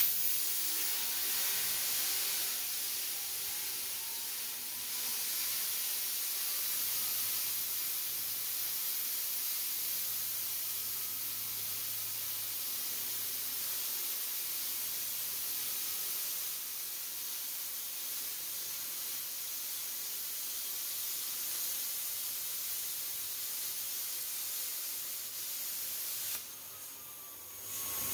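Handheld air plasma cutter cutting through the steel wall of a tank, a steady loud hiss of the plasma jet. It cuts out briefly near the end and starts again.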